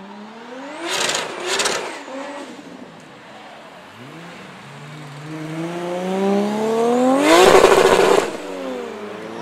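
A tuned car accelerating hard past the spectators, its engine note climbing steadily and loudest as it goes by, then dropping in pitch as it pulls away. Near the start another engine revs up, with two short loud bursts about a second in.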